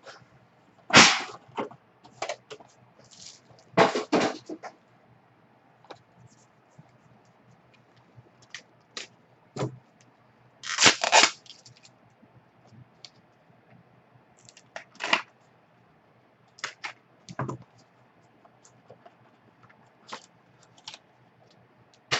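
Small card boxes being handled, picked up and set down: scattered clicks, taps and short scraping rustles, the louder ones about a second in, around four seconds and around eleven seconds. A faint steady low hum sits underneath.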